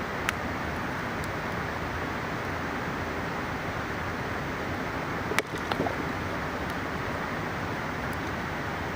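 Steady rushing of a mountain river, with a few sharp pops and crackles from a burning campfire. The loudest pop comes about five and a half seconds in, followed by a few smaller crackles.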